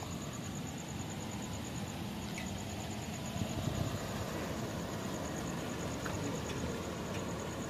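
Vehicle engines running close by: a steady low rumble, with a faint, rapidly pulsing high-pitched tone throughout.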